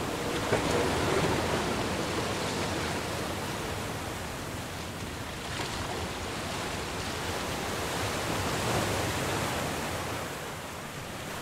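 Surf breaking over rocks in a rough sea: a steady rush of foaming, churning water, with a louder splash about half a second in.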